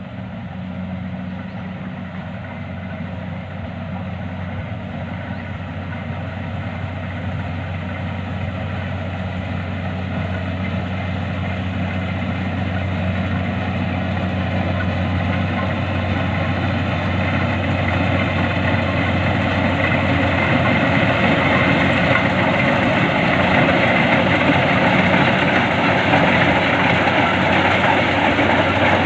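Engine of a rice harvesting machine running steadily, its hum and mechanical noise growing gradually louder.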